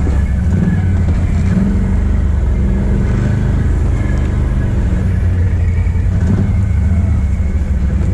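Can-Am Outlander ATV's V-twin engine running while being ridden: a steady low drone with small rises and falls in revs.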